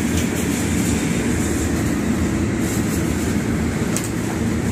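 Steady low rumble of a ship's running machinery, with brief rustles of a padded thermal jacket being pulled on near the start and again near the end.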